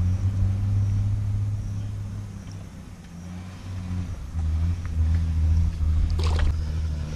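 A steady low rumble that fades in the middle and comes back. About six seconds in, a fishing rod is cast, giving one short swish.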